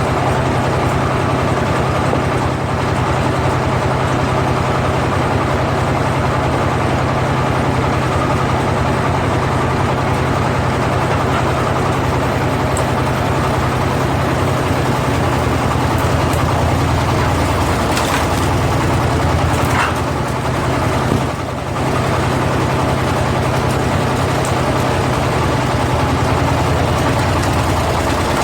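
Single-cylinder diesel engine of a two-wheel power tiller running steadily, driving a firewood splitter. A few short sharp knocks come about two-thirds of the way through, with a brief dip in the engine sound.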